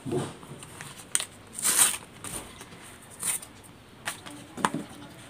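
Several short crinkles and rustles of paper being peeled off a super-glued patch on a rubber inner tube and handled, with a light click or two from the tube being moved.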